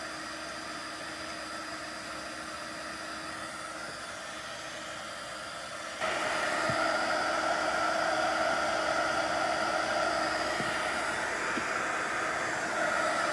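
Craft heat gun running steadily, blowing hot air across wet alcohol ink, with a faint steady motor hum under the rush of air. About six seconds in it gets suddenly louder.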